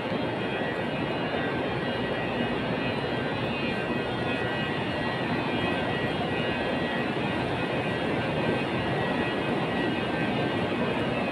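Steady mechanical whir of a parked high-speed train's cooling and air-conditioning equipment: an even rushing hum with several thin, steady high whining tones over it.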